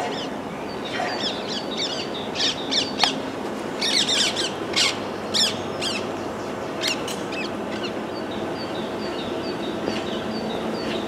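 Small birds chirping and calling over a steady background hum of town noise: a scatter of quick sweeping chirps, then a run of short high notes repeated about twice a second in the second half.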